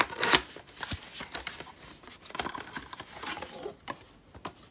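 A cardboard box being handled: its end flap pulled open and a clear plastic water bottle slid out, giving a run of irregular scrapes, rustles and light knocks of card against plastic, loudest near the start.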